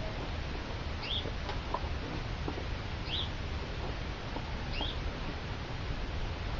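Bootlaces being pulled and threaded through the hooks of a leather combat boot: faint rustles and small ticks over a steady low hum. Three short high chirps come about two seconds apart.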